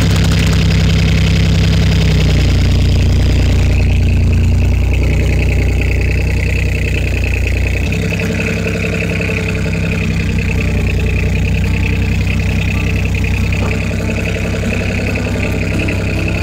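Takeuchi mini excavator's diesel engine running steadily while the machine is driven forward, its note changing about halfway through, with a steady high whine over it.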